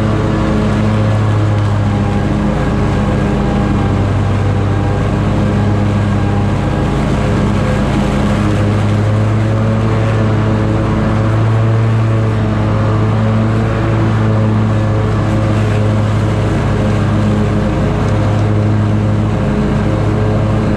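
Scag Tiger Cat zero-turn mower cutting grass: its engine and the 61-inch deck's spinning blades run steadily at a constant pitch.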